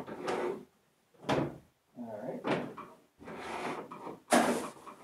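White Romex electrical cable being pulled through drilled holes in wooden wall studs: several short scraping pulls about a second apart, with rustling handling noise between them.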